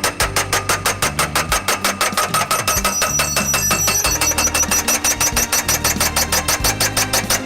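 Pile driver's hammer striking a post in a fast, even rhythm of about eight blows a second, over the steady running of the machine's engine.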